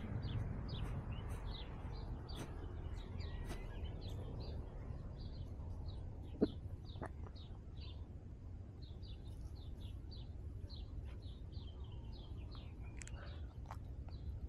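Small birds chirping repeatedly, short high chirps a few times a second, over a steady low rumble. A single short sharp sound stands out about six seconds in.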